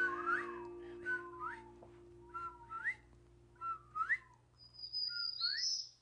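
Whip-poor-will calls: the three-note 'whip-poor-will' phrase repeated about five times, each ending in a sharp rising note. Under the calls, a plucked string chord from the song's accompaniment fades away, and a brief high chirp sounds near the end.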